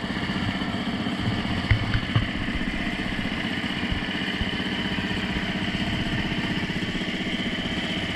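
A small engine running steadily at an even speed, with two short knocks about two seconds in.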